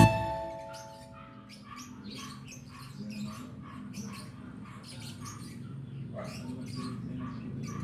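Quick, evenly repeated chirping from a small animal, about two to three chirps a second, while the last notes of the background music die away in the first second and a half.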